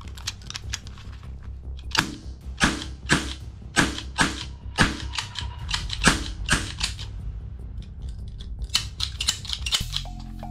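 Toy revolver fired repeatedly with its trigger, giving about ten sharp snaps roughly half a second apart, then a quick rattle of clicks near the end. Background music plays throughout.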